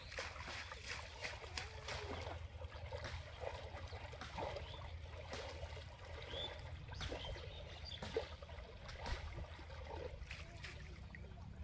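Water trickling and splashing lightly as a wet cast net is drawn up out of shallow water and gathered by hand, with many small scattered drips and sloshes over a steady low rumble.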